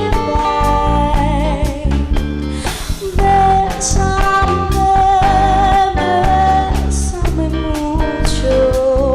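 Live lounge band music: a singer holding notes with vibrato over bass, guitar and a steady drum beat.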